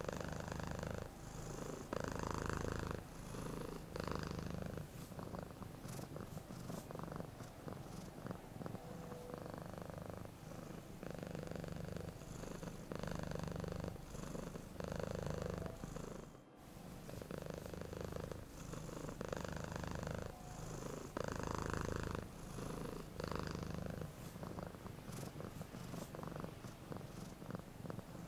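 Domestic cat purring steadily, the rumble swelling and easing in a regular rhythm about once a second as it breathes in and out. There is a very short break about halfway through.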